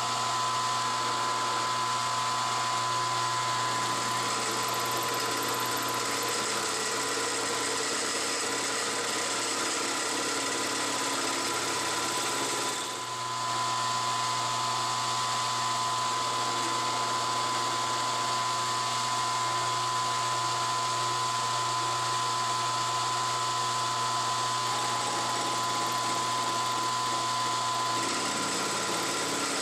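Milling machine running, its cutter machining an aluminium plate: a steady whine that dips briefly about 13 seconds in.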